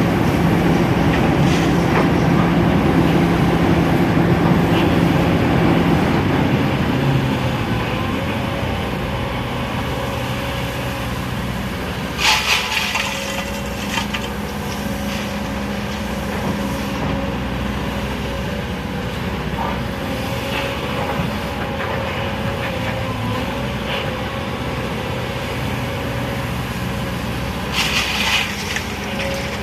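Sany hydraulic excavator's diesel engine running steadily, louder for the first six seconds or so, then easing to a lower, steadier drone. Two brief, sharp bursts of noise come about halfway through and again near the end.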